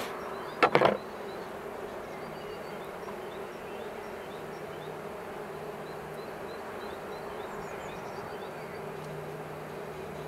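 Honeybee colony humming steadily from an open hive. Just under a second in, a quick cluster of sharp clicks from the metal hive tool against the wooden frame top bars.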